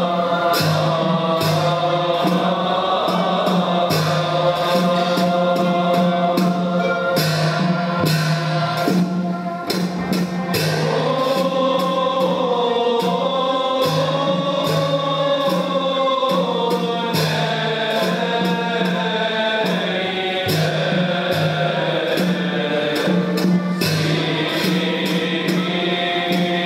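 Group of men singing a Mevlevi hymn together in unison, with long held and gliding notes, over the steady beat of a hand frame drum.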